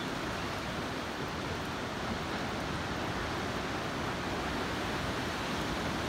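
Distant ocean surf breaking on a reef: a steady, even rush of noise with no single wave crash standing out.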